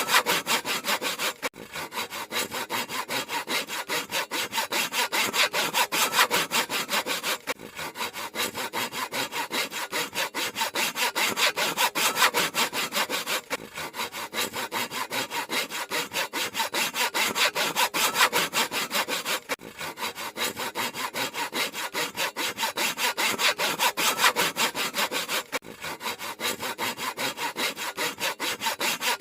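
Handsaw cutting through wood in quick, even back-and-forth strokes, each stroke a rasping scrape. There is a brief break about every six seconds.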